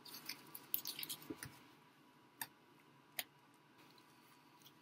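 Faint clicks and small pops of chewed bubblegum slime being squeezed and stretched by hand: a scatter of them in the first second and a half, then two single pops. The slime is stiffened with added borax, which makes it crunchy.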